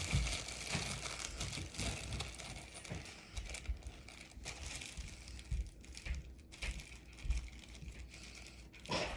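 Plastic and paper packaging crinkling and rustling as it is handled and pulled off, with scattered light knocks and clicks.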